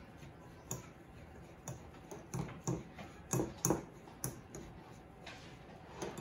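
Cookie dough being kneaded by hand in a glass mixing bowl: a string of soft, irregular knocks and squishes as the hands press the dough and bump the bowl, about one every half second.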